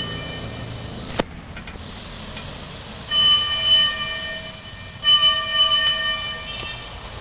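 Fire truck horn blaring in two long, steady blasts about three and five seconds in, over street noise. A sharp click comes about a second in.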